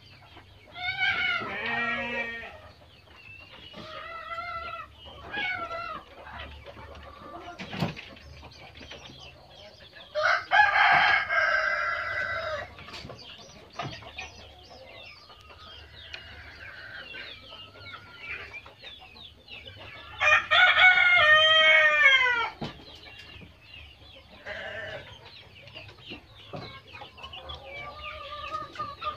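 Ayam kampung (Indonesian native chickens) calling, with roosters crowing and clucking between. The two loudest, longest crows come about ten and about twenty seconds in, the second dropping in pitch at its end.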